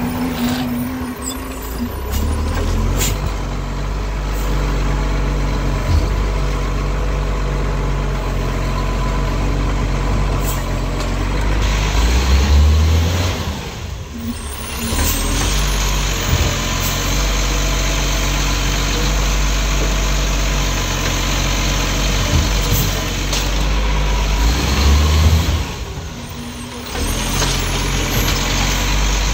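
Iveco ACCO side-loader garbage truck's diesel engine running as the truck creeps along the kerb and settles to an idle, with a steady low hum that dips briefly twice.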